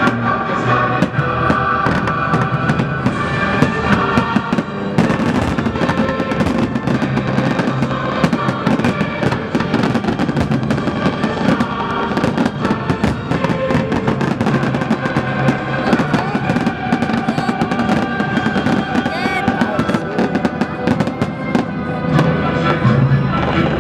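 Fireworks shells bursting in many sharp bangs and crackles over continuous loud music, the soundtrack of a pyromusical fireworks show.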